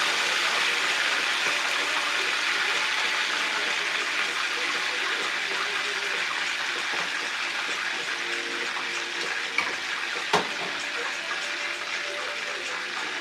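Breaded chicken thighs frying in hot oil in a skillet: a steady sizzle with light crackles, easing slowly. A single sharp click about ten seconds in.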